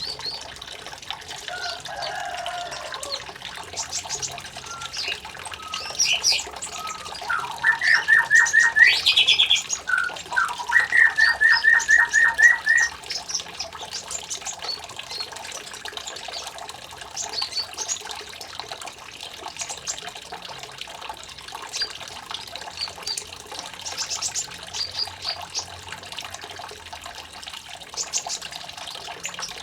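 A small songbird chirping and singing, with short high calls throughout and two fast, loud trills about 8 and 11 seconds in, over the steady trickle of running water.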